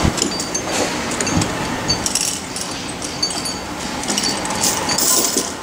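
Outdoor building-site ambience: a steady background noise with scattered short, high metallic clinks.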